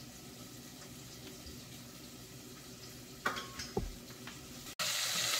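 Sliced red onion frying in oil in a saucepan, a faint steady sizzle, with a couple of brief clatters about three seconds in. Near the end the sizzle turns much louder, with a wooden spatula stirring the onion.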